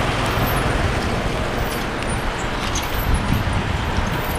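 Steady road-vehicle noise, with a few clicks in the middle.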